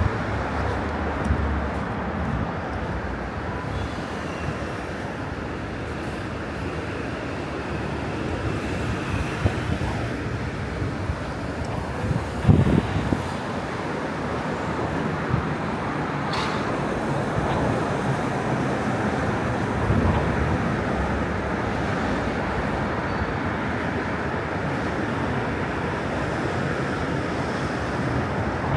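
City street traffic noise, steady, with a brief louder burst of low sound about twelve seconds in.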